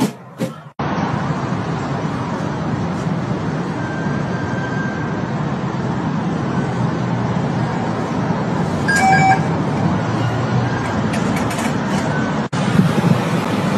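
Steady street traffic noise, with a short high tone about nine seconds in.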